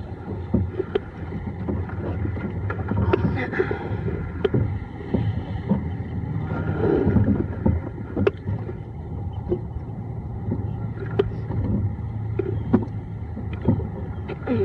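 Rowing eight under way, heard from the boat: a steady low hum and rushing water along the hull, with sharp clicks of the oars in their oarlocks recurring every second or two.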